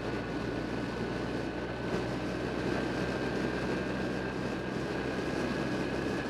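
Motorcycle engine running steadily while riding at cruising speed, recorded by an action camera mounted on the bike, with wind and road noise over it and a thin whine that rises slightly in pitch.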